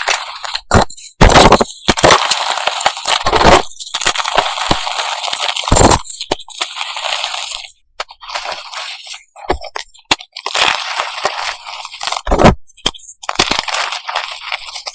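Reformed gym chalk pieces shaped like M&M's being crushed and crumbled: a quick run of crisp crunches and sharp cracks, broken by short pauses.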